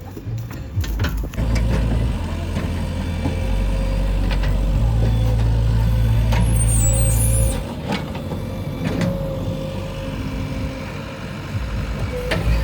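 Diesel engine of a JCB 3DX backhoe loader working under load: it picks up about a second and a half in, runs hard, then eases back about halfway through. Sharp knocks and clanks come through over a steady whine, with a brief high squeal near the middle.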